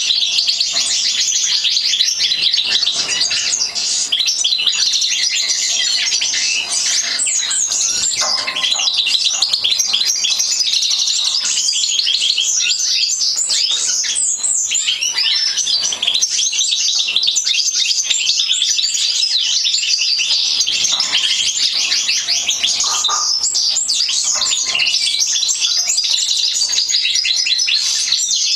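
Caged finches of a European goldfinch × linnet breeding pair singing: a loud, continuous, fast twittering song of high chirps and trills, without pauses.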